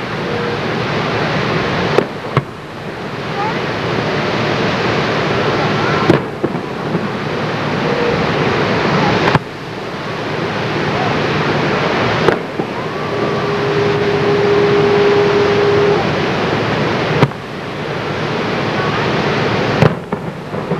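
Distant fireworks shells bursting: about half a dozen sharp bangs a few seconds apart over a steady rushing background noise. The noise drops suddenly after most bangs and then swells back up.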